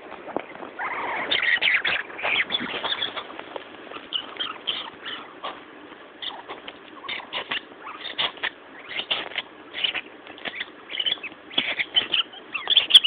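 A small terrier chewing on a rubber squeaky ball, squeezing out quick, irregular high-pitched squeaks, several a second, with short pauses between bursts.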